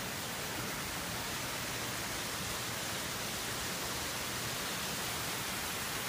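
A steady, even hiss with no distinct events, strongest in the upper range.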